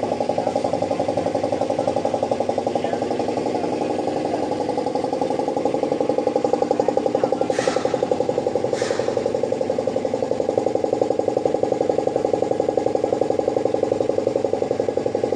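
Freshly overhauled Toyota 2AZ-FE 2.4-litre four-cylinder engine idling steadily on a test run outside the car, a fast even pulse. Two short hisses come about halfway through.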